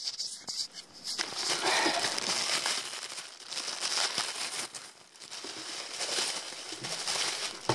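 Packaging crinkling and rustling unevenly, with small clicks, as a part is worked free of its wrapping by hand.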